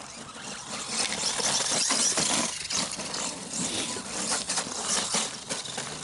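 ECX Ruckus 1/10 electric RC monster truck driving over frozen, gravelly dirt: irregular crunching and rattling of the tyres and chassis over a high hiss, getting louder and softer as it goes.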